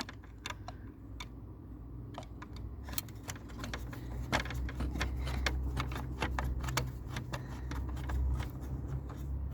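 Irregular metallic clicks and clinks of a screwdriver and small metal parts being handled while a tower fan is taken apart, over a steady low hum.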